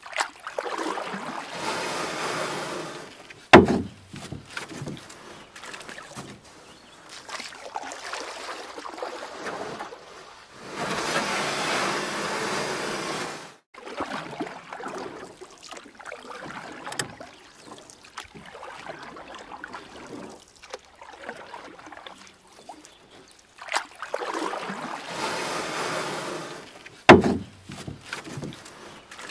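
Kayak paddling: water splashing and dripping off the paddle in swells of two to three seconds, with quieter gurgling between. Two sharp knocks stand out, one about three and a half seconds in and one near the end.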